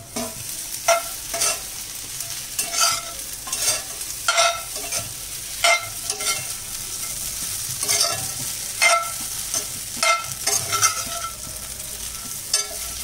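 Steel spatula scraping and tapping against a black iron pan, one or two strokes a second at an uneven pace, as idli pieces are tossed with fried onion and curry leaves. Hot oil sizzles steadily underneath.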